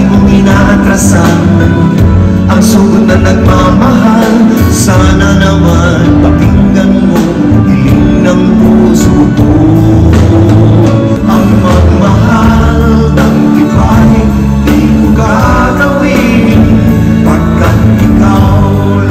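Live music: men singing into handheld microphones over band accompaniment.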